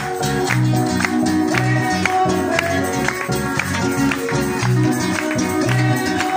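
Praise music with a steady beat of about two strokes a second over a repeating bass line.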